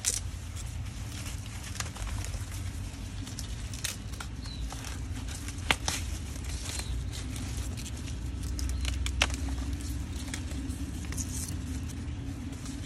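Sugarcane stalks and dry cane leaves rustling and crackling as they are handled, with scattered sharp snaps, the loudest about six and nine seconds in. A steady low rumble runs underneath.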